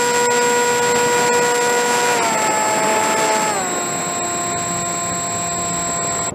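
Electric motor and propeller of a Bixler RC plane whining steadily in flight, the pitch dropping in two steps as the throttle comes back, then cutting off abruptly right at the end.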